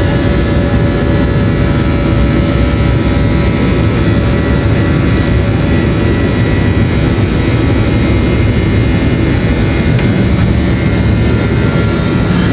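Inside an airliner cabin: steady engine noise and rumble as the plane rolls along the runway, with a faint steady whine over the low rumble.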